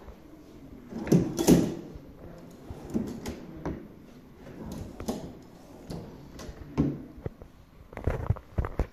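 Wooden museum display drawers being slid open and pushed shut, a series of separate slides and knocks, the loudest about a second and a half in and a quick cluster near the end.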